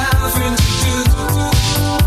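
Background dance music with a steady, fast beat and a bass line.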